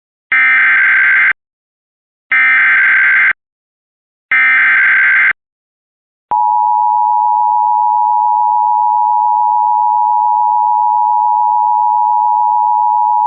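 Emergency Alert System header: three one-second bursts of SAME digital data tones, a second apart, then about six seconds in a steady two-tone attention signal near 1 kHz that carries on. It is the signal that opens a broadcast severe thunderstorm warning.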